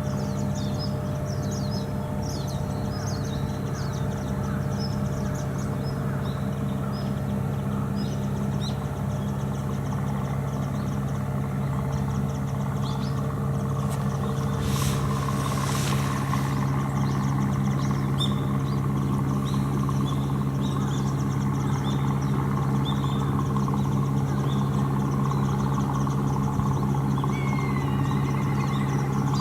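An engine idling steadily with a low, even hum, while small birds chirp over it. A brief hiss comes about halfway through.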